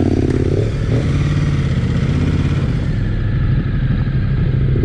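Motorcycle engines running at low revs as two bikes pull away slowly from a standstill.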